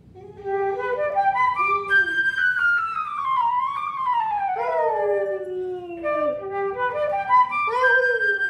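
Flute playing quick runs of scales while a dog howls along, its howl sliding down in one long falling, wavering note through the middle before the flute runs up the scale again near the end.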